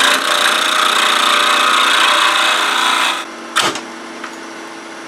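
Wood lathe running as a gouge cuts the spinning wood, a loud steady scraping hiss over the machine's hum. About three seconds in the cutting stops, and a moment later a single sharp crack is heard: a catch, the tool hitting the spinning workpiece. The lathe keeps running more quietly after it.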